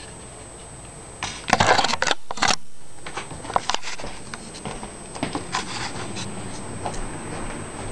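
Camera handling noise: a loud burst of rustling and knocking about a second and a half in, then scattered light clicks and taps.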